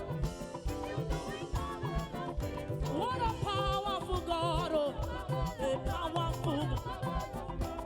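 Live church worship band playing an upbeat praise song with a steady percussion beat and held chords. A wavering melody line comes in about three seconds in.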